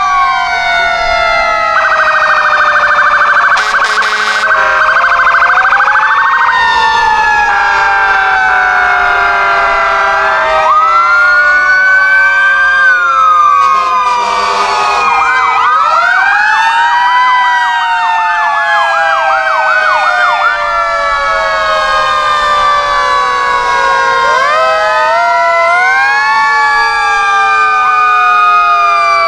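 Several police and fire engine sirens sounding at once, long rising and falling wails overlapping one another. There is a fast warble a couple of seconds in and a quick yelp about halfway through.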